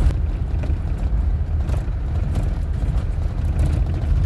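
Car driving slowly, a steady low rumble of engine and tyres.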